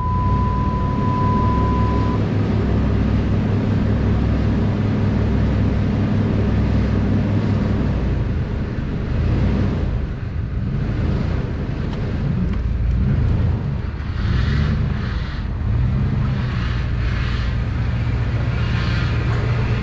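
Jeep ZJ engine running while the truck is driven slowly, its low drone pulsing unevenly for the first several seconds and changing pitch after about ten seconds. It is running rough after sitting for months. A steady high tone sounds for about the first two seconds.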